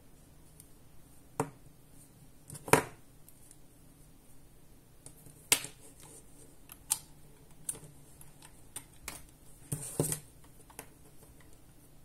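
Scattered short, sharp clicks and knocks of hard plastic being handled as a USB cable is plugged into a charger and a small rechargeable flashlight. The loudest knock comes a little under three seconds in, with a quick cluster of clicks near the end.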